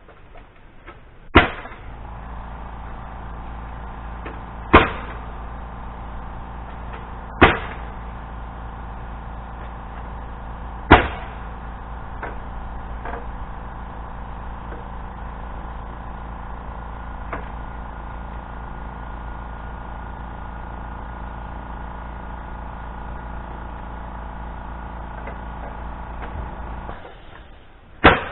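Pneumatic nail gun firing, four sharp shots a few seconds apart in the first eleven seconds and one more near the end. A Fortress portable air compressor kicks on just after the first shot, runs with a steady hum while refilling its tank, and shuts off about a second before the last shot.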